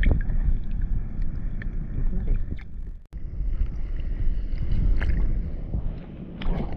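Wind buffeting the microphone over choppy open water, a steady low rumble with a few faint scattered clicks. The sound drops out for an instant about three seconds in.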